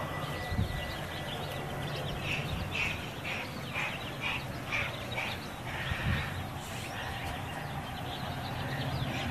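Outdoor ambience: a steady low hum, with a run of about seven short, high calls, about two a second, from about two seconds in to about five seconds in.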